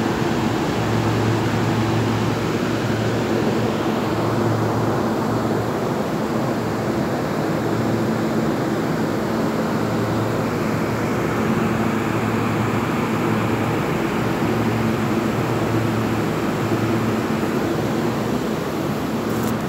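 Cooling and air-circulation fans of a banana ripening chamber running: a steady rush of moving air with a low hum.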